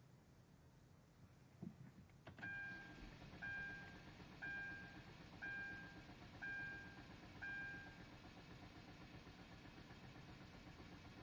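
Hyundai Genesis Coupe's dashboard warning chime sounding six times, about once a second, after a click, over a steady low hum of the car's electrics.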